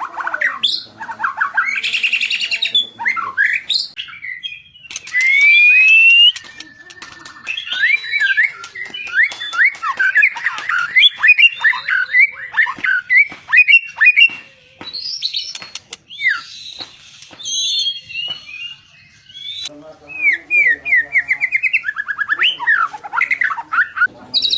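White-rumped shama (murai batu) singing a long, varied song of loud whistled slurs, fast trills and rapid repeated notes, with a few short pauses between phrases and a long rising whistle about five seconds in.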